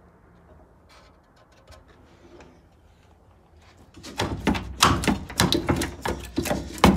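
Faint room tone, then from about four seconds in a fast, irregular run of loud metal clanks and knocks as a rusted, spot-welded cab mount bracket is worked back and forth to break it free of the Toyota Hilux's body.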